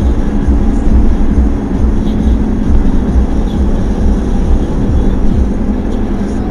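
Steady low road rumble of a car driving at highway speed, tyre and engine noise heard from inside the cabin.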